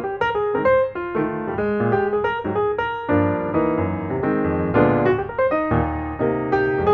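Background piano music: a flowing melody of quick notes over chords.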